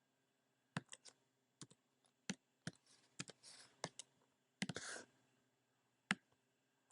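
Computer keyboard keys and mouse buttons clicking, a dozen or so irregular clicks, a couple with a short rustle after them.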